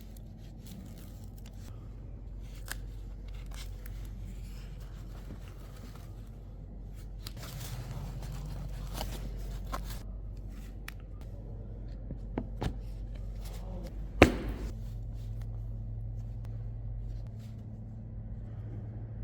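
Small handling noises: scattered light clicks, taps and rustles, with one sharper click about fourteen seconds in, over a steady low hum.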